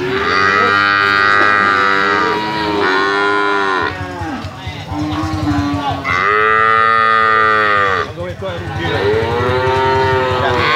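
Calf mooing in a series of long, drawn-out calls, about four of them a second or two each, with a short low call between the second and third.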